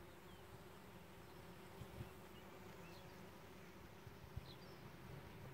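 Honeybees foraging on flowering lavender, a faint, steady buzzing hum.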